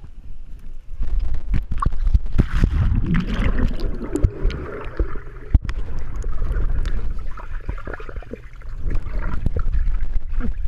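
Pool water splashing and sloshing as a person swims, with a dense churning rumble and many small splashes.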